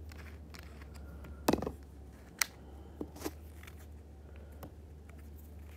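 A few sharp clicks and knocks from snowboard binding parts being handled, with a steady low hum underneath. The loudest knock comes about a second and a half in and a sharp click about a second later.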